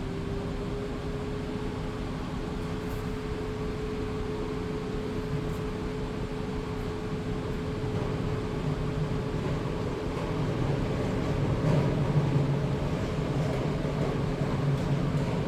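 Steady mechanical hum from a car with its ignition on, carrying two steady tones, one of which starts right at the beginning and rises slightly in pitch. A deeper rumble grows louder about nine seconds in.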